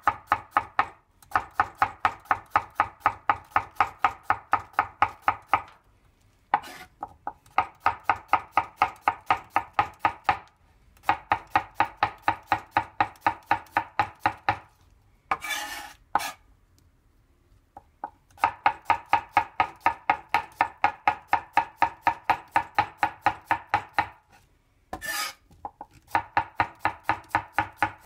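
Kitchen knife slicing a cucumber into thin rounds on a cutting board: a rapid, even run of blade taps on the board, about five cuts a second. The runs break off several times for a second or so, and two of the breaks hold a brief scraping sound.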